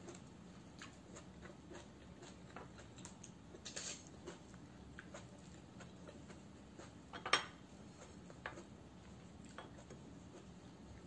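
Faint crackles and clicks of fingers picking apart crisp fried dried fish (tuyo) and rice on a plate, with a louder scrape near four seconds and a sharp crackle a little past seven seconds.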